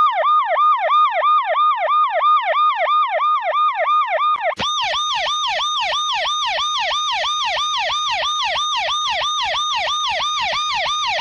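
Emergency vehicle siren in a fast yelp, its pitch sweeping up and down about three times a second. About four and a half seconds in it cuts abruptly to a second, brighter and harsher-sounding siren variation with the same rapid sweep and a low pulse under each cycle.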